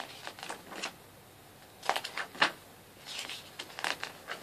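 Several short paper rustles and light taps as the pages of a photo book are turned and handled.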